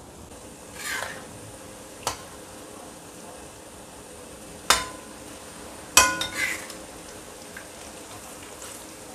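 Flour-coated dried shrimp (udang rebon) frying gently in oil in a stainless steel wok, a soft steady sizzle without spattering. A metal spatula stirs and scrapes through them, clanking against the wok with a ringing metal strike about 2 seconds in and louder ones near 4.5 and 6 seconds.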